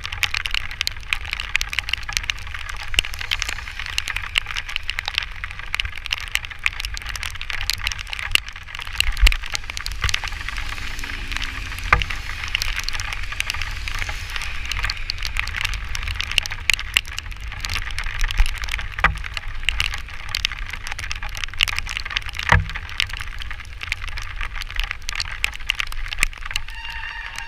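Rain and road spray pattering on a moving camera, with a constant low wind rumble and the hiss of wheels on wet pavement. Two sharp knocks come through, about a third and three quarters of the way in, and a high squeal sets in near the end.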